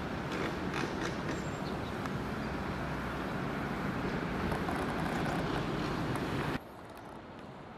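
Steady outdoor background noise, an even rushing haze with no distinct calls or tones. About six and a half seconds in it drops abruptly to a quieter hiss.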